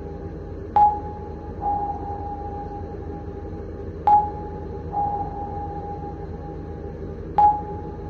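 Submarine active sonar pinging three times, about every three seconds. Each ping is a sharp, high tone followed a moment later by a softer, longer tone that fades away. A steady low rumble runs underneath.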